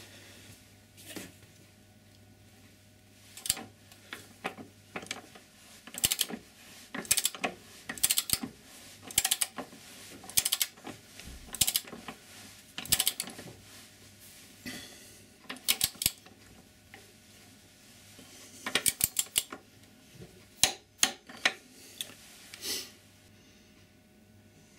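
Ratcheting torque wrench clicking in short repeated strokes, roughly one a second, as it tightens a motorcycle's rear axle nut. A brief pause comes partway through, then a few more clicks near the end.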